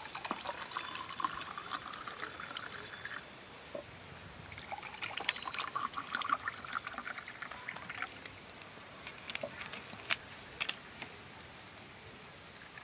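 Water poured into two glass tumblers in turn: a steady splashing pour for about three seconds, a short pause, then a second pour of about three seconds, followed by a few light drips and ticks.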